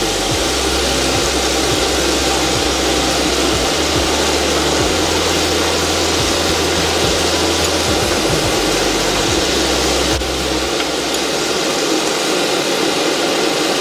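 Pork ribs and winter melon sizzling steadily in a pan as the braising sauce cooks down, over a steady low hum.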